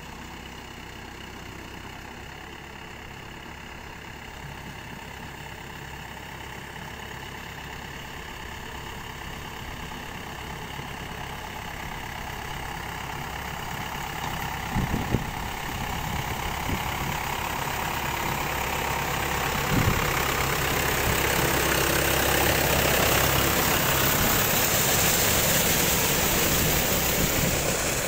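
Mahindra 595 Turbo tractor's four-cylinder diesel engine running steadily as it drags a leveling board through a flooded paddy field, growing louder as it comes close, with the wash of churned mud and water rising in the second half. Two brief knocks about halfway through and again a few seconds later.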